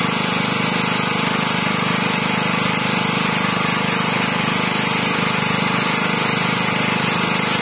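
SJ2000CX portable gasoline generator set running steadily at a constant engine speed.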